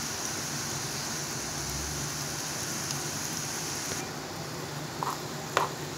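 Hot oil sizzling and bubbling steadily around strands of gram-flour sev dough frying in a wok. The high hiss eases off about four seconds in, and a couple of short clicks come near the end.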